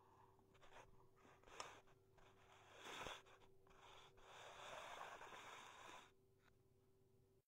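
Near silence: faint room tone with a steady low hum, a couple of soft clicks, and a faint rustle in the middle that fades away near the end.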